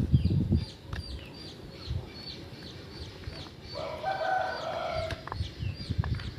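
Birds calling: a short high chirp repeats about three times a second, and a longer, lower call sounds about four seconds in. Low rumbling thumps are loudest right at the start.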